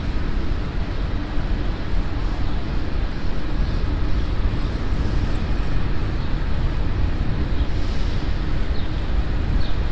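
Steady low rumble of downtown street traffic and engines heard from a moving bicycle, with no single event standing out.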